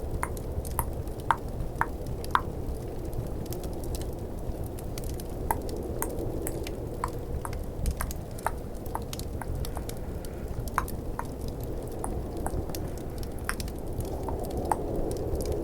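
Tongue clicks, a run of about two a second at first and then scattered, over a steady low hiss and rumble of snowstorm and fireplace ambience.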